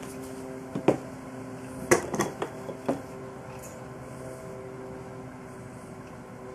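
A few sharp knocks and taps on a wooden workbench, a pair about a second in and a quick cluster around two to three seconds in, as a glue bottle is set down and wooden jig parts are handled. A steady hum runs underneath.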